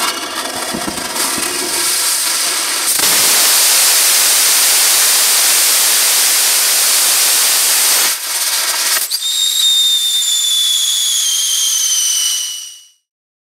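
Hy800 "Corvette" hybrid rocket engine (HTPB fuel with liquid oxygen) test-firing. It whistles as it lights with sparks and smoke, then runs as a loud, steady rushing roar for about five seconds during the burn. After shutdown there is hissing with two whistling tones slowly falling in pitch, and the sound cuts off just before the end.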